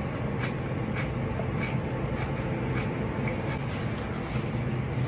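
Mouth chewing a mouthful of boiled lettuce, with faint soft crunches about twice a second over a steady low hum.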